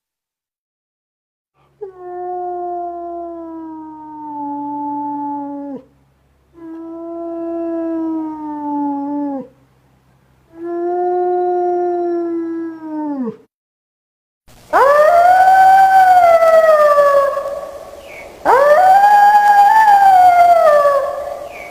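Wolves howling: three long howls of about three to four seconds each, slowly falling in pitch. About fifteen seconds in come two louder, higher howls that rise and then fall.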